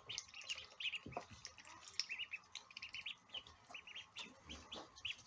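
A brood of ducklings peeping: many short, high chirps overlapping, several a second.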